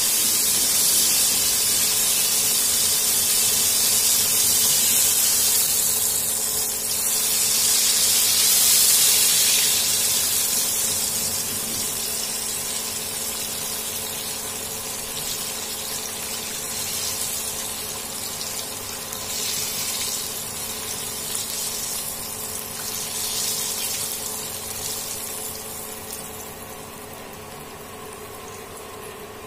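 Battered snapper fillets deep-frying in hot oil: a loud, steady sizzle that gradually dies down over the last third.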